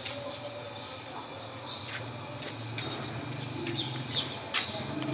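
Small birds chirping outdoors: short high chirps every second or so, over a low steady hum.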